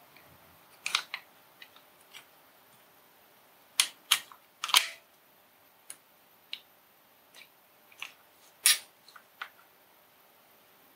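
Self-adjusting wire stripper clicking and snapping as its jaws grip and strip the insulation from thin USB cable wires: a string of separate sharp clicks, the loudest about four and nine seconds in.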